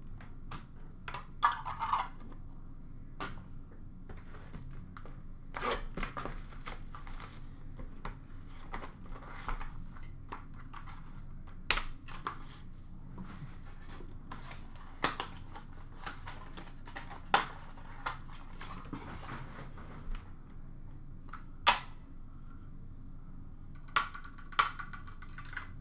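Hands opening and handling a cardboard trading-card box and the small boxes and cases inside, with cardboard rustling and scattered sharp clicks and clacks as pieces are set down on a glass counter. A short burst of rapid rustling comes near the end.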